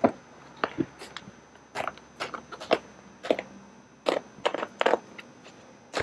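Factory vinyl cover being cut and peeled off a truck console lid's foam cushion, making an irregular run of crisp snaps and crackles, a few each second.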